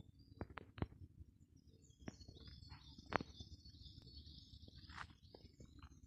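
Woodland songbirds: one sings a phrase of rapidly repeated, downward-sweeping notes lasting about three seconds, starting about two seconds in, while other birds call in the background. A few sharp clicks fall near the start and in the middle.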